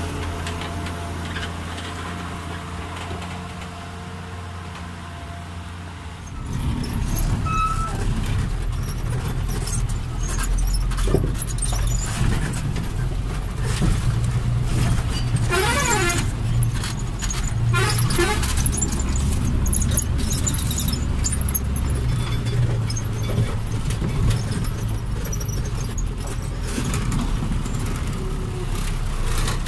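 Truck engine running, then the truck driving over a rough gravel road with a low engine drone and steady rattling and clattering of the body. Two brief warbling squeals come through midway.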